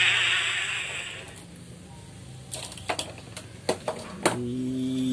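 Motocross dirt-bike engines running, fading out within the first second. Then a series of sharp plastic clicks and knocks from toys being handled, followed by a steady low hum for about a second and a half near the end.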